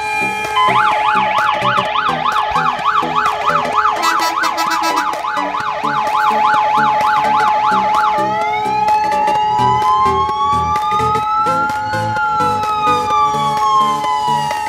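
Fire engine's electronic siren: a fast yelp sweeping up and down about three times a second, switching about eight seconds in to a slow wail that rises for about four seconds and falls again. A steady tone is held underneath throughout.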